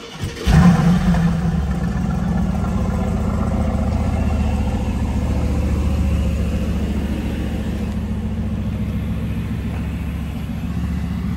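Mercedes-AMG GT's 4.0-litre twin-turbo V8 starting about half a second in with a brief flare, then settling into a steady, low idle that eases slightly toward the end.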